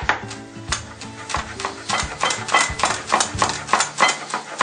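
Quick, irregular clinks and knocks of a utensil against a pan as the pasta is worked, over background music with sustained chords.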